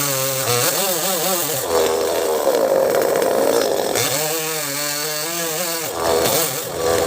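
Two-stroke chainsaw running, its engine pitch rising and falling as the throttle is worked. From about two to four seconds it holds a steady high pitch with a rougher, noisier sound, typical of the chain biting into mango wood.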